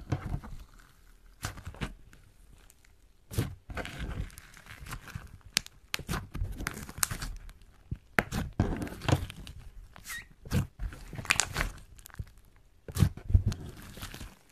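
Clear slime mixed with foam balls and small beads being squeezed, pressed and stretched by hand, giving irregular sticky pops, clicks and crackles as it is worked. The loudest cluster of pops comes near the end.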